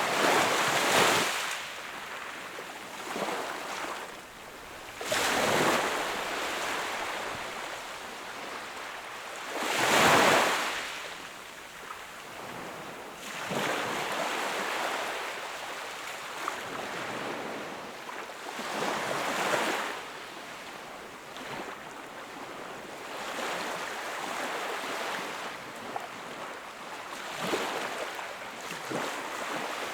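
Sea waves breaking and washing up the shore, surging and falling away every few seconds, the biggest surge about ten seconds in.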